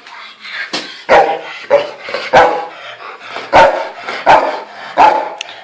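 A dog barking repeatedly, about five loud barks roughly a second apart, directed at cats.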